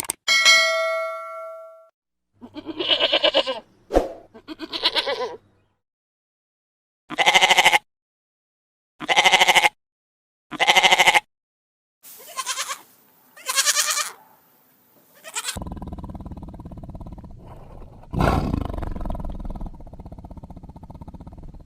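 A series of separate animal calls: a ringing tone at the start, then pitched calls in ones and twos, a run of three evenly spaced calls of equal length, and a longer rough, noisy call from about three-quarters of the way in to the end.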